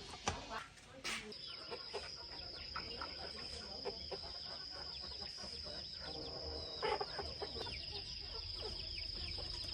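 Chickens clucking and peeping in short, falling calls, with one louder call about seven seconds in, over a steady high-pitched insect drone that starts about a second in.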